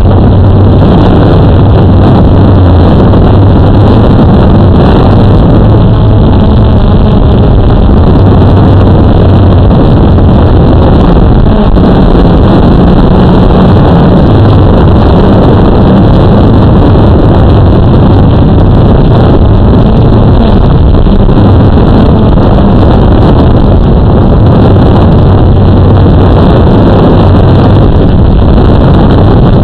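Drone motors and propellers heard from the camera on board: a loud, steady buzzing hum that shifts a little in pitch as the drone flies, with some wind noise.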